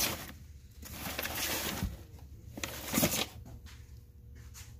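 Old papers and books rustling and sliding as a hand rummages through a box of them, in irregular bursts, with the loudest handling noise about three seconds in.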